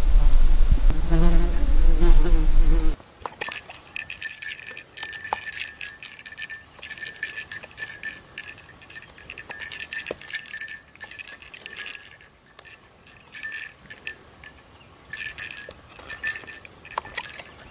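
A small metal bell or tag on a dog's collar jingling in quick, irregular bursts as the dog jerks her head up, snapping at deer flies. A loud low rumble covers the first three seconds.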